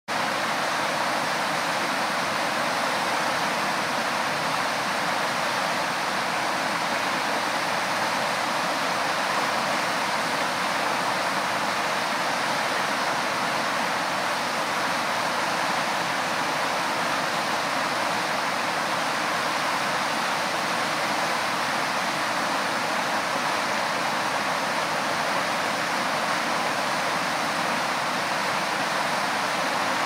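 Brook water rushing over a low dam spillway and churning into white-water rapids below: a steady, unbroken rush of falling water.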